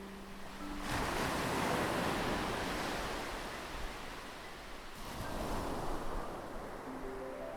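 Ocean waves washing onto a shore: a large wave surges in about a second in and slowly ebbs, and a smaller one follows around five seconds in. Soft piano notes sound at the very start, and a rising run of piano notes comes in near the end.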